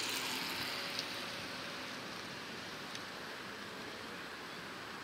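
Distant Aquila A211 light aircraft's propeller engine running as a faint steady drone under a louder, even hiss.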